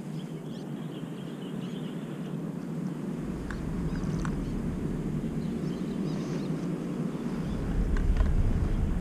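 Wind rumbling on the camera microphone. The rumble grows stronger about three seconds in and again near the end, with a few faint ticks.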